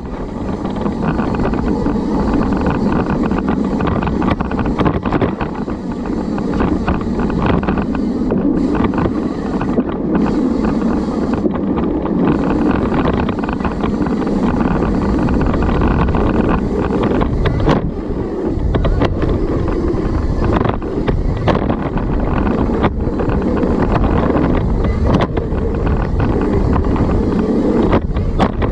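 Steady wind rush on the microphone and tyre noise from a mountain bike riding a dirt trail, with frequent small knocks and rattles over bumps.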